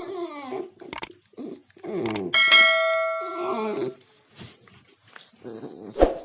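Dog whimpering and yipping in short, gliding whines. A single bell-like ding rings out about two and a half seconds in and fades after about a second.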